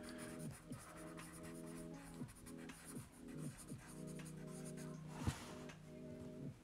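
Graphite pencil writing on sketchbook paper: short scratchy strokes as block letters are written, with a louder knock a little over five seconds in. Soft background music with sustained notes plays underneath.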